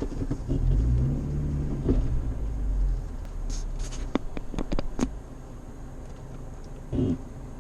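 A Suzuki X-90's four-cylinder engine running, with the revs rising about half a second in and easing off after about three seconds. Several sharp clicks follow, and there is a short thump near the end.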